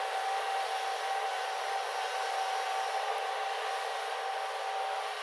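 Steady mechanical whirring noise with one steady high hum through it.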